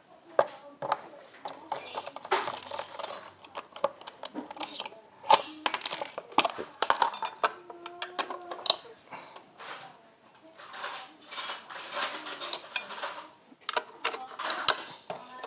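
Metal hand tools and small parts clinking and clattering, a run of short, sharp knocks throughout.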